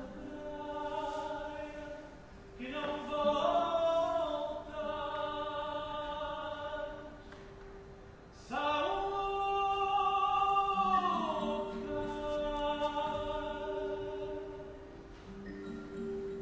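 Live singing in long held notes over a steady sustained drone, in several drawn-out phrases. The loudest phrase starts about halfway through and slides down in pitch before it ends.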